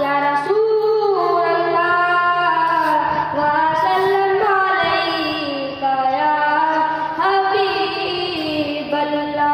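A boy singing a naat solo in a high voice, holding long notes that slide and step between pitches. A faint steady low hum runs underneath.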